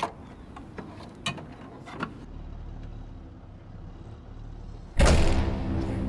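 Clicks and knocks of a truck cab door handle and a person climbing up to a military truck's cab. About five seconds in, a sudden loud hit gives way to a steady low drone.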